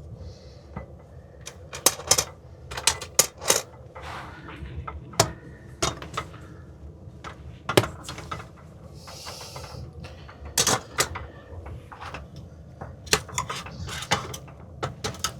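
Irregular clatter and knocks of a cooking pot and metal utensils as potatoes are dropped into a simmering stew, with a brief hiss about nine seconds in.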